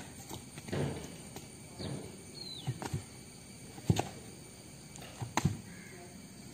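Scattered footsteps and shoe scuffs on outdoor stone paving, irregular, with a few sharp clicks, the loudest about four seconds in.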